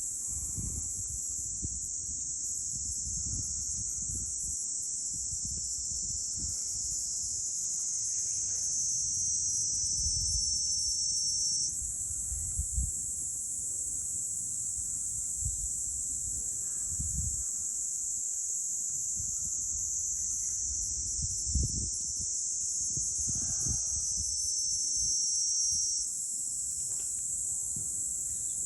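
Dense, steady, high-pitched chorus of insects, twice joined for about three seconds by a second pitched insect buzz that cuts off abruptly. Low rumbles underneath.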